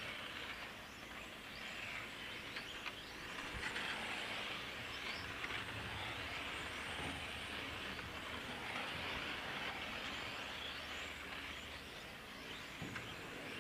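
1/8 scale electric on-road RC cars racing around a tarmac circuit: a high whirring hiss of motors and tyres that swells and fades as the cars pass and move away.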